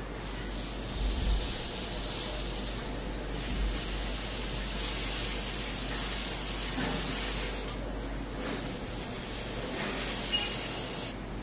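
Soldering iron tip being wiped in a brass-wool tip cleaner: a steady hiss that dips briefly about eight seconds in and stops suddenly near the end.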